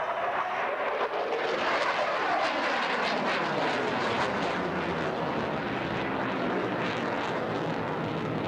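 A fixed-wing airplane flying past: its engine note falls in pitch over a few seconds as it goes by, over a steady rushing engine noise.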